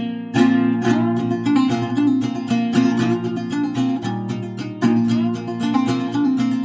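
Background music played on plucked strings: a quick, continuous run of picked notes.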